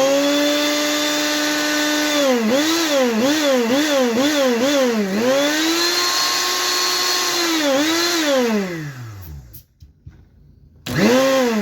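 Mondial blender's motor running again after its blown thermal fuse was replaced: it spins up to a steady high whine, then its speed dips and recovers in quick pulses, about two a second, for some three seconds. It runs steady again, winds down and stops, then gives one short burst near the end.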